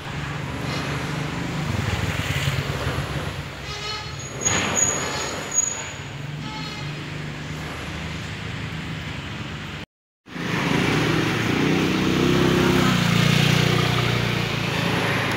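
Street traffic: motor vehicles running past, with a few sharp clatters about four to six seconds in. The sound cuts out completely for a moment just before the ten-second mark, then comes back louder.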